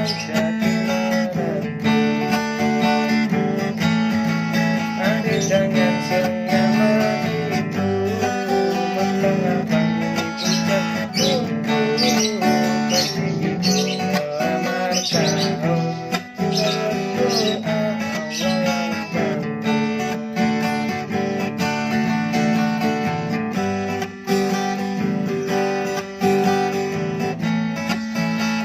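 Acoustic guitar strumming chords, with a voice singing a wavering melody over it for much of the time.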